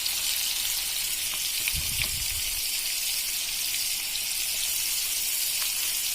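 Crumb-coated chicken pieces deep-frying in hot oil, a steady sizzle with a few faint pops. A brief low rumble about two seconds in.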